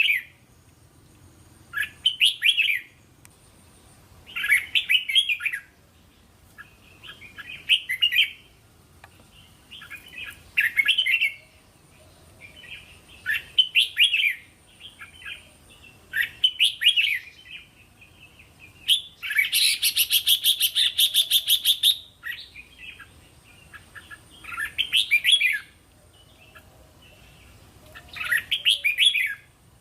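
Red-whiskered bulbul singing short warbled phrases about every three seconds. About twenty seconds in, it gives a longer, rapid chattering run of notes.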